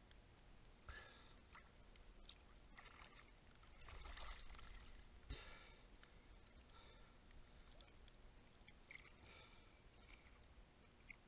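Faint sea water splashing and lapping around a swimmer at the surface, in irregular soft bursts, a few of them stronger about four to five seconds in.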